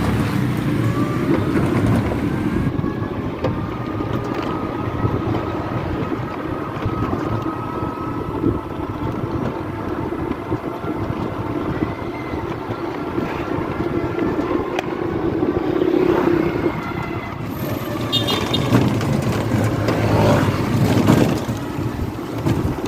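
Three-wheeled e-bike with a 350-watt motor, now run on a 60-volt battery in place of its stock 48-volt one, riding along: a steady electric motor whine that rises slightly in pitch over the first few seconds, over road and wind noise.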